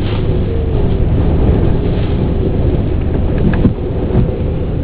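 Loud, steady low rumble of hurricane wind buffeting the microphone, mixed with a car's running engine, and a brief knock about three and a half seconds in.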